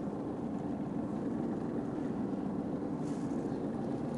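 Boat engine running steadily, a constant low hum heard from on board.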